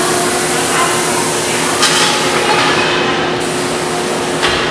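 Stainless-steel honey extracting machinery running with a loud, steady hum and whir, with two sharp metal clanks, one midway and one near the end, as the honeycomb frames are handled.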